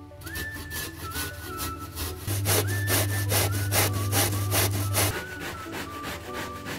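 Zucchini grated against a stainless-steel box grater: a steady run of rhythmic rasping strokes, with a low hum for a few seconds in the middle. Faint background music.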